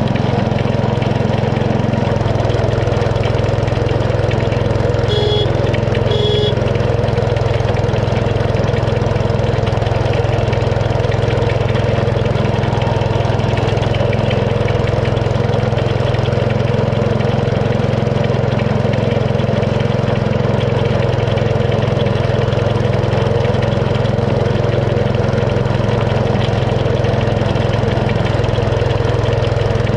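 Small internal-combustion engine of a 7 1/4-inch gauge miniature railway locomotive running steadily as the train travels along. Two brief high chirps come about five and six seconds in.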